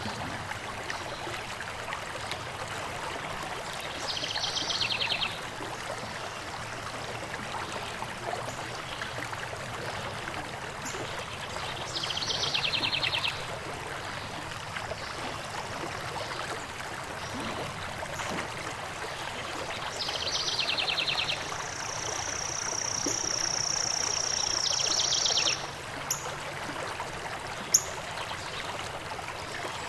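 Stream running steadily, with a bird's short rapid trill repeating several times over it, a long steady high whistle a little past the middle, and a couple of sharp high chirps near the end.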